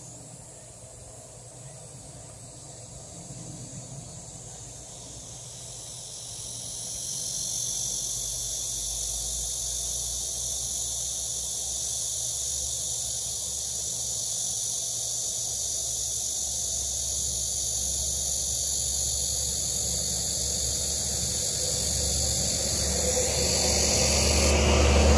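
Insects buzzing in a steady, high-pitched chorus that swells about seven seconds in, with a low rumble building toward the end.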